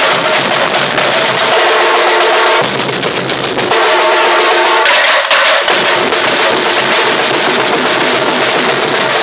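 A Brazilian bateria percussion ensemble drumming loudly in a warm-up rehearsal: many drums playing a fast, dense rhythm without pause.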